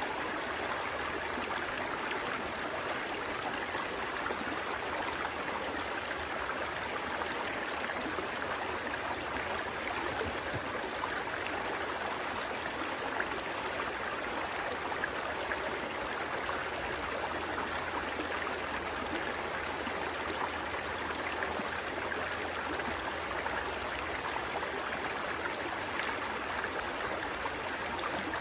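Flowing water making a steady, even rush that runs on without a break.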